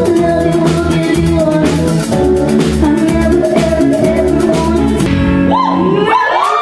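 A live band plays with guitar, drums and singing, and the song stops about five seconds in. The crowd then breaks into screaming and cheering.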